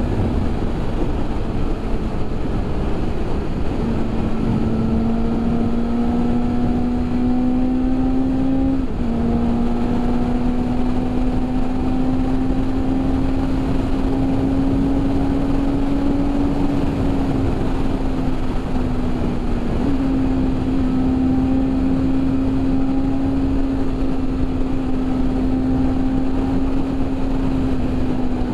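BMW S1000RR's 999 cc inline-four engine running at steady cruising revs over a steady rush of wind. Its note creeps slowly higher, with two brief dips in pitch, about nine and about twenty seconds in.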